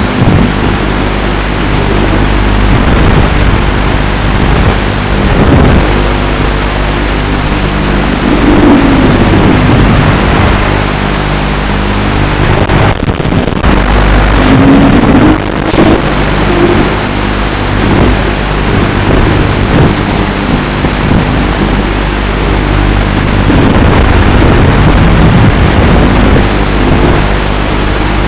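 FPV racing quadcopter's brushless motors and propellers buzzing loudly, their pitch sweeping up and down again and again with the throttle, over a rushing noise.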